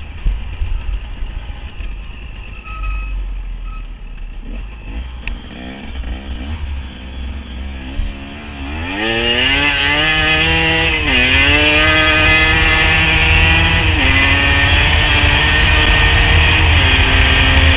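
Enduro motorcycle engine under way, with a low rumble on the microphone and the engine faint at first. About halfway through the engine is opened up and pulls hard, rising in pitch, then dropping back at each upshift and climbing again, three times.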